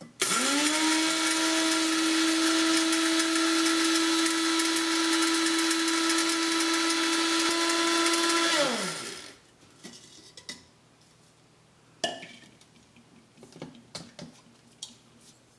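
Electric blade spice grinder grinding roasted cumin seeds into a fine powder: the motor whines up to speed, runs steadily for about eight seconds, then winds down as it is switched off. A few light knocks and clicks follow.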